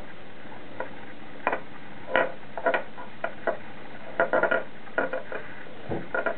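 Irregular light taps and knocks of a finger puppet being moved and bumped on a wooden tabletop, over a steady background hiss.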